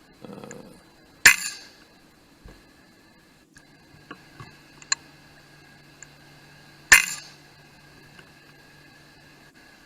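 Two shots from an FX Royale 400 .22 PCP air rifle, each a single sharp report with a short ring, about five and a half seconds apart. A faint steady hum and a few small clicks sit beneath them.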